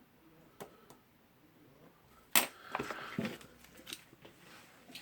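A few sharp clicks and light knocks from the parts and tools of a disassembled rotary hammer being handled. The loudest comes about two and a half seconds in, with smaller knocks after it.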